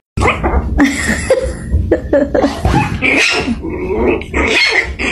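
A small puppy making a rapid run of short, squeaky yips and whines at a large black dog.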